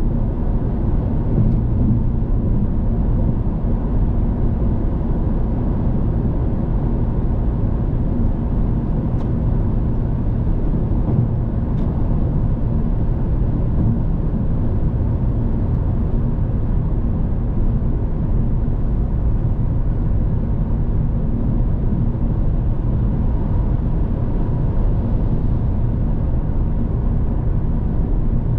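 Steady road noise of a car cruising on the highway: an even, low rumble of tyres and engine at a constant speed.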